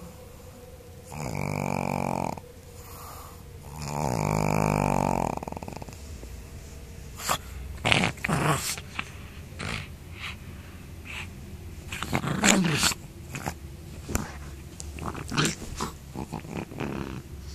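Pug growling in two long, drawn-out growls, then a quick run of short huffs and grunts as it mouths and tugs at a plush toy.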